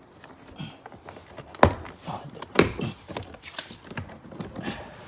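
Plastic door trim cover being pried off a car door: a series of sharp clicks and knocks, the two loudest about a second apart.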